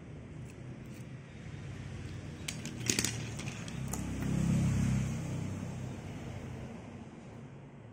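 A few sharp clicks and taps about three seconds in as a small diecast toy car is handled and set down on a glass shelf. A low rumble then swells and fades around the middle.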